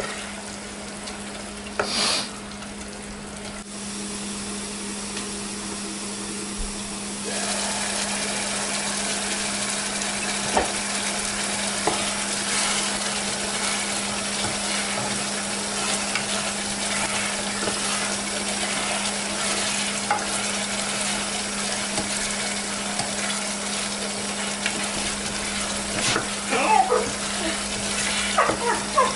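Chicken pieces sizzling as they fry in spice paste in a saucepan, stirred with a spatula that scrapes and knocks against the pot, with one sharp knock about two seconds in. The sizzle grows louder about seven seconds in.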